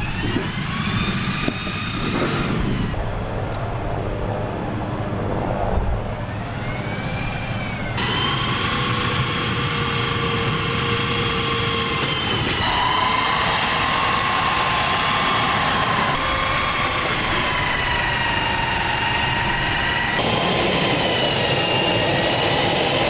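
Gas-turbine engine of an M1150 Assault Breacher Vehicle running, a steady whine whose pitch rises and falls over a rumble. The sound changes abruptly every few seconds, as if between separate shots.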